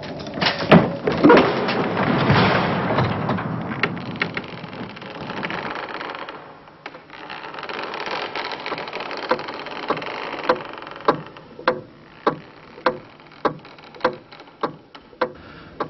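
A dramatic sound-effects track: a rushing, noisy haze with scattered knocks, then from about nine seconds in a steady run of sharp knocks, a little under two a second.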